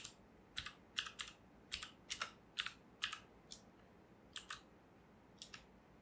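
Typing on a computer keyboard: about fourteen quick key clicks at uneven spacing, some in close pairs.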